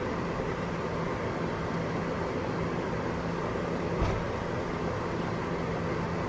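Inside the cab of a Toyota Dyna truck driving at steady speed: its 14B 3.7-litre diesel engine drones steadily under road and wind noise. A single thump about four seconds in.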